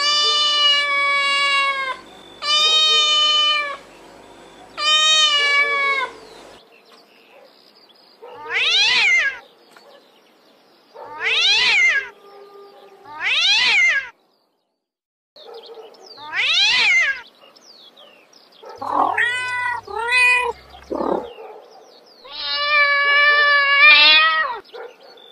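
Domestic cats meowing: a string of separate meows from different cats. It opens with three long, even-pitched meows, then several shorter meows that rise and fall, a quick run of short ones, and one last long meow near the end.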